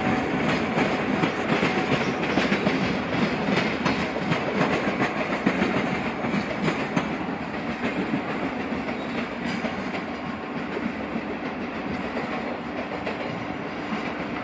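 Yellow-and-blue NS double-deck electric passenger train running along the rails, its wheels clicking over rail joints and points. It grows quieter after about six seconds, leaving a steady hum.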